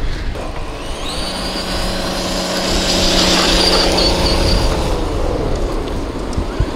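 Traxxas TRX-6 Mercedes-Benz 6x6 RC truck driving fast on a dirt trail, its electric motor and drivetrain whining. The whine winds up about a second in, holds steady, then drops away near five seconds.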